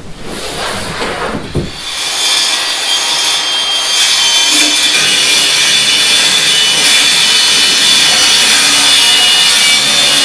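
Handheld circular saw ripping a strip about three-quarters of an inch off a wooden board. The saw starts cutting about two seconds in and then runs steadily through the wood.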